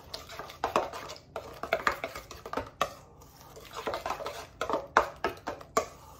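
A utensil stirring pancake batter in a stainless steel mixing bowl, with irregular scrapes and clinks against the metal, several a second.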